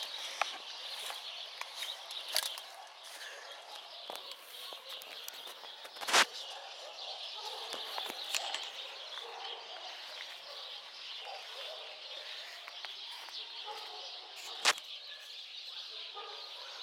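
Birds chirping over a steady outdoor hiss, with three sharp clicks: one at the start, a louder one about six seconds in, and one near the end.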